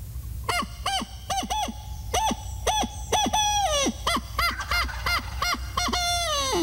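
Mouth-blown owl locator call imitating a barred owl: two loud phrases of short rising-and-falling hoots, each phrase ending in a long downward slide. It is blown to make a distant gobbler answer so the hunter can locate him.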